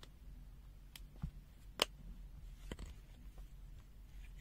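A few faint, sharp clicks and taps from a handheld multimeter being handled, the loudest a little under two seconds in, over a faint low background hum.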